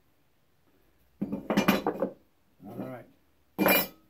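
Metal speed square clattering and clinking against the wooden frame and workbench as it is handled and set down, in a few short bursts, the loudest near the end.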